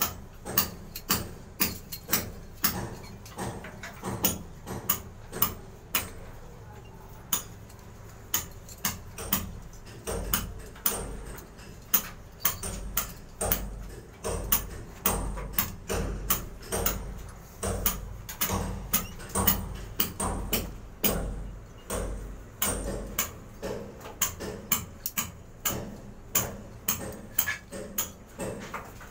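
A steady run of sharp clicks, about two or three a second, with low thuds mixed in through the middle stretch.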